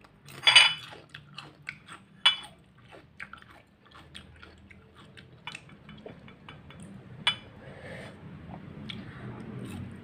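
Close-up eating sounds: crisp bites and chewing of bitter gourd (ampalaya) slices, with a scatter of sharp clicks and clinks, some from the small ceramic dip bowl. The loudest clicks come about half a second in, a little after two seconds and past seven seconds.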